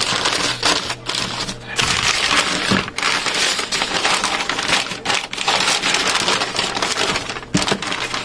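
Newspaper wrapping being crumpled and pulled away by hand: a near-continuous crackling rustle broken by a few brief pauses.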